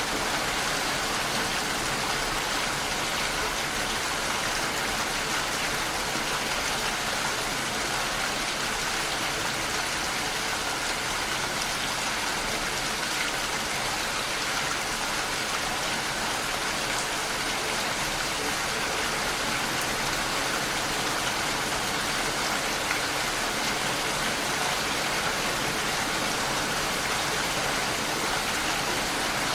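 Steady rain hitting a window pane, an even hiss of drops without letup.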